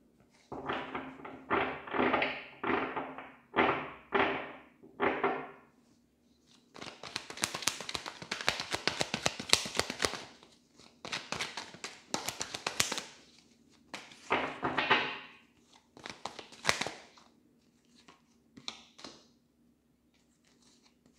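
A tarot deck being shuffled by hand: about six quick shuffle strokes half a second apart, then several seconds of rapid card clicking, then a few scattered strokes and taps.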